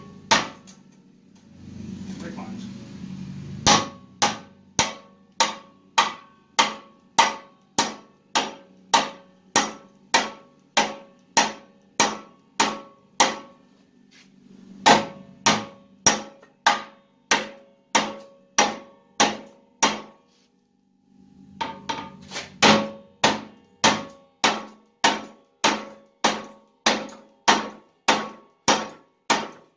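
Hammer blows driving a new upper trailing arm bushing into the axle-side mount of a GM four-link rear axle housing, struck directly with no pipe driver. The strikes ring sharply, about two a second, in three runs with short pauses between.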